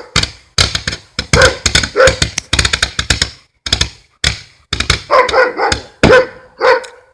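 A 100-shot barrage firework cake firing a rapid string of sharp shots, several a second, with a dog barking in among them. It all stops suddenly near the end.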